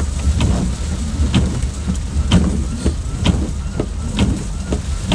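Rain and wind beating on a vehicle over a steady low rumble, with windshield wipers sweeping in a regular rhythm about once a second.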